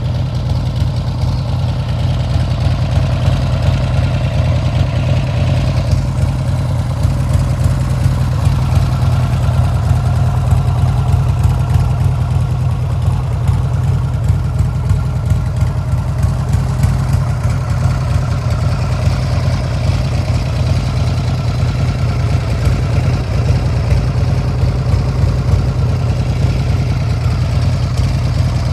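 1997 Buell S1 Lightning's air-cooled 1203 cc V-twin idling steadily, with a loud, even low throb and no revving.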